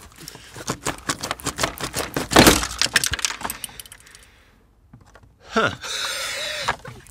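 Hard plastic clicking and rattling as the stock air intake is wrenched out of its rubber grommets, with one loud crack about two and a half seconds in as a plastic mounting part snaps.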